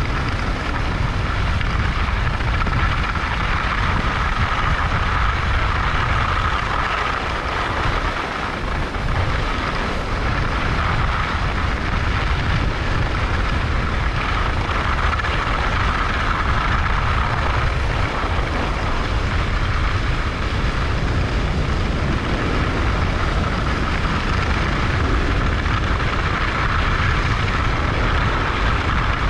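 Wind rushing over the camera microphone and skis sliding over the snow during a downhill run: a steady rushing noise with a deep rumble, easing briefly about eight seconds in.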